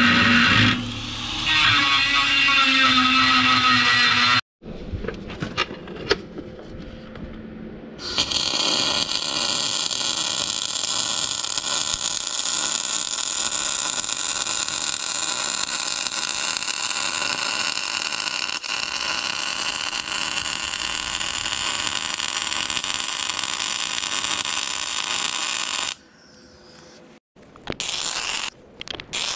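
A grinder whines against steel for the first few seconds; after a short break, a welding arc crackles and hisses steadily for about eighteen seconds as a hot weld is run into a crack in the steel plow frame, with a few short arc bursts again near the end.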